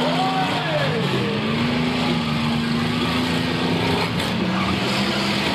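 Several demolition derby cars' engines revving hard at once, a loud, steady din with engine pitch rising and falling.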